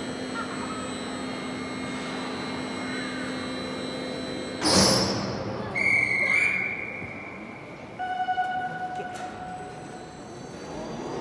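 Overhead gantry crane moving a suspended railcar body: a steady mechanical hum with a few held tones. About halfway through comes one loud knock with a ringing tail, followed by a high held tone and, about two seconds later, a lower one.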